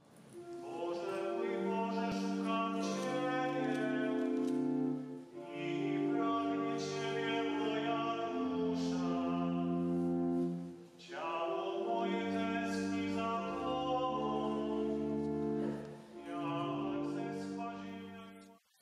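Slow, solemn choral music: low and high voices holding sustained chords in four phrases of about five seconds each, with a short break between phrases. It fades out near the end.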